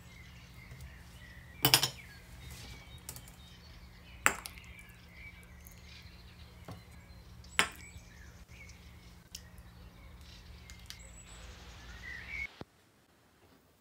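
Metal ladle clinking against the pot and ceramic soup bowls while soup is served: three sharp clinks a few seconds apart, the first the loudest, with lighter taps between. Underneath runs a low steady hum that cuts out near the end.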